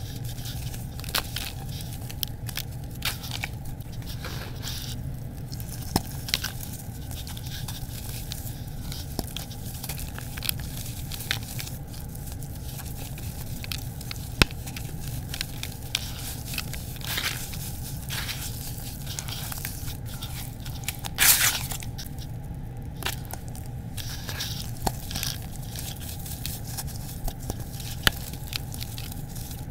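Hands kneading and squeezing wet, gritty red dirt and crushed-brick paste in a plastic bucket: sticky squelching with scattered crackles and crunches of grit, and one louder wet burst about two-thirds of the way through. A steady low hum runs underneath.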